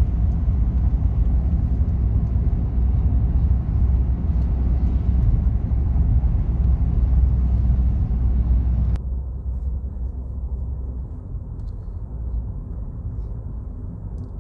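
Steady low rumble of road and engine noise heard inside a moving car's cabin. About nine seconds in it abruptly turns quieter and duller.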